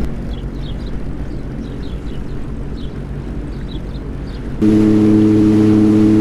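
Sea-Doo jet ski engine running low and slow with a rumbling hum and a few faint high chirps. About four and a half seconds in it jumps suddenly to a louder, steady, even drone as the engine runs at a higher speed.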